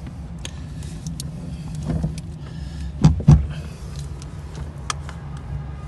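Hands-on work fitting a car battery: scattered clicks and knocks, with two heavy thumps about three seconds in, over a steady low hum.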